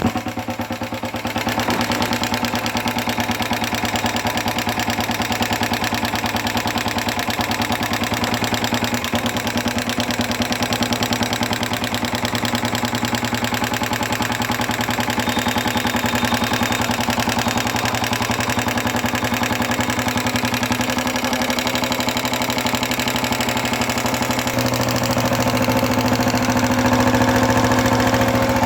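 Royal Enfield Electra 350's single-cylinder four-stroke engine idling steadily after a fresh start, slightly louder near the end. It is being run to check that the oil pump now sends oil up to the top of the engine; the tapping noise was traced to oil not being pumped, and a small rubber ring in the magneto cover has been refitted to cure it.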